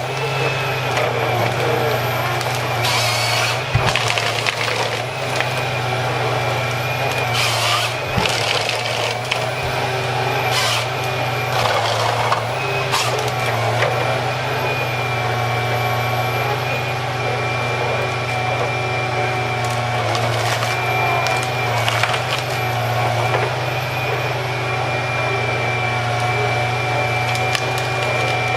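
A heavy machine running with a steady low hum and a high whine, broken every few seconds by short bursts of hissing and cracking.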